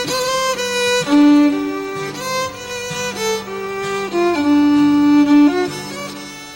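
Country fiddle playing an instrumental break between sung verses: a melody of held notes with slides between them, over a sustained lower accompaniment.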